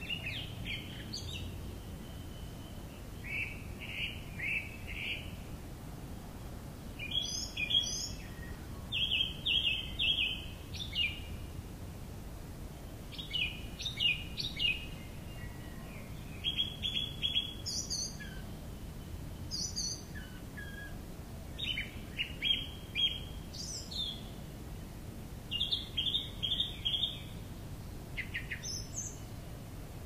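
Small birds chirping outdoors: short runs of quick, high chirps, repeated every second or two, over a steady low background rumble.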